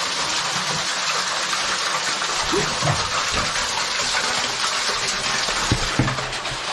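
Cave waterfall rushing steadily: a loud, even wash of falling water.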